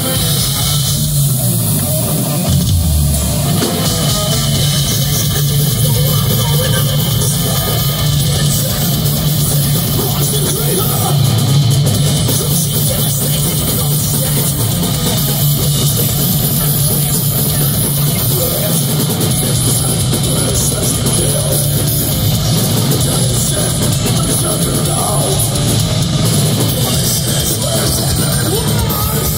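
Live heavy metal band playing through a stage PA: distorted electric guitars, bass and drum kit, loud and steady.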